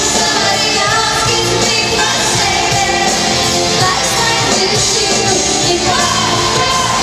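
Live band playing, with a woman singing lead into a microphone over electric guitar.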